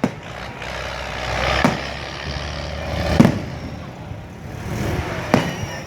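Fireworks bursting: four sharp bangs, one every second and a half to two seconds, over a constant rumbling background.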